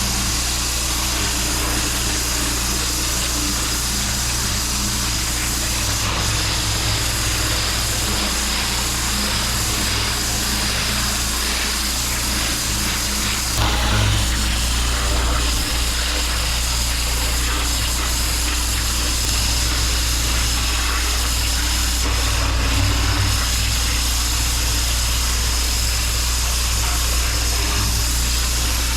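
Pressure washer's engine running steadily under the constant hiss of the high-pressure water spray cleaning block paving.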